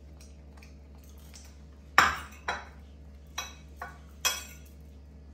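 Tableware clinking: five sharp clinks of metal on dishes with brief ringing, the first and loudest about two seconds in, the rest over the next two seconds.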